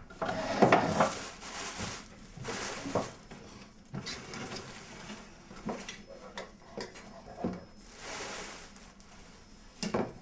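Irregular knocks and clattering of household objects, with brief scraping or rustling noises; the loudest stretch comes in the first second and a half.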